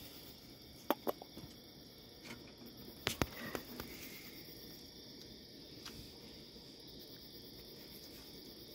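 Night insects chirring steadily in a high, even band, with a few sharp clicks during the first six seconds.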